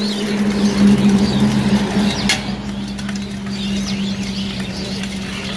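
Jhal muri (spiced puffed rice) being shaken and tossed in a steel tin, a steady dry rattle, with a short clink a little past two seconds. A low steady hum runs underneath, loudest in the first two seconds, and birds chirp in the background.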